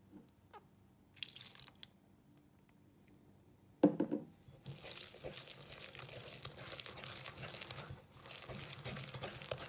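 Wire whisk stirring a thick, wet batter of crushed cocoa biscuits and milk in a glass bowl. There is brief stirring about a second in, then a sharp wet splash just before four seconds as milk goes in, followed by steady whisking.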